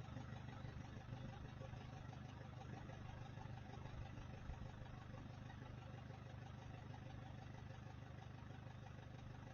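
Faint engine idling steadily, a low even hum with a fast pulse.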